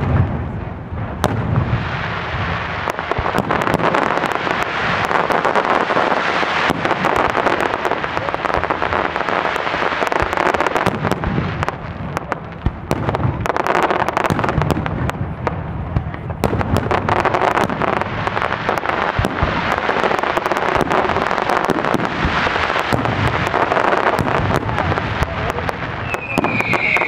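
Fireworks display: a continuous barrage of crackles and bangs from ground fountains and bursting aerial shells, with a high whistle starting near the end.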